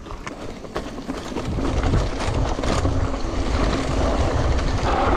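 Mountain bike rolling fast down a dirt trail strewn with dry leaves: tyres crunching over leaves and ground, the bike rattling, and wind rumbling on the microphone. It grows louder over the first two seconds as speed builds.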